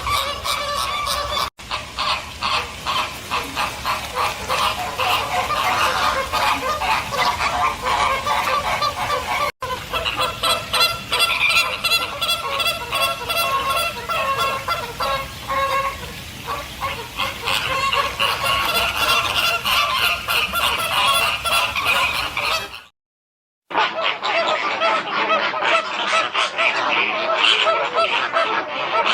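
A flock of flamingos honking and chattering, with many goose-like calls overlapping rapidly. There is a brief cut to silence about 23 seconds in, after which the honking resumes sounding duller.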